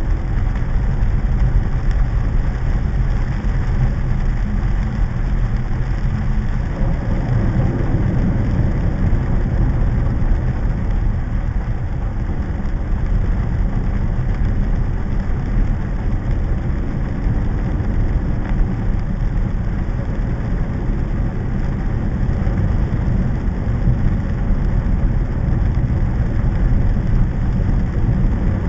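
Steady, loud noise of heavy rain and vehicles on a flooded street, dominated by a deep rumble.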